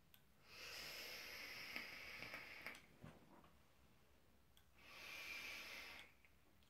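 Two long draws on a Gemztek Lucky Star 2 dual-coil RTA vape tank, its dual chainlink coils fired at 61 watts: each is a steady airy hiss of air pulled through the open airflow. The first lasts about two seconds, and a shorter second one comes near the end.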